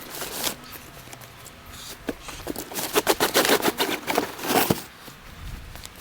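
Packaging being handled while a boxed bivvy is unpacked: a run of quick, sharp crackles and scrapes, thickest for about two seconds in the second half.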